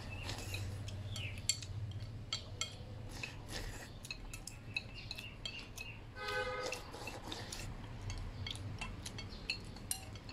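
Bamboo chopsticks tapping and scraping against a ceramic rice bowl as rice is shoveled into the mouth, in quick irregular clicks. About six seconds in there is a brief pitched, voice-like sound.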